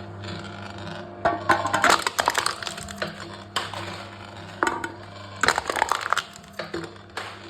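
Aluminium cans being crushed by a can-crushing machine: crackling, crunching metal in spells, the longest about a second in, then shorter ones later, over a steady low hum.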